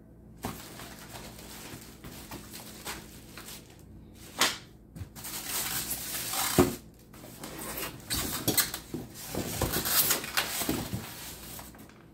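Packaging being handled: a polystyrene foam insert lifted out of a cardboard box, with rustling and scraping. There are sharp knocks about four and six and a half seconds in, and a busier stretch of rustling near the end.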